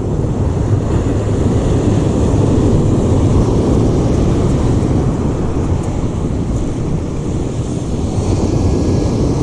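Steady wind rumble buffeting the microphone over the wash of surf.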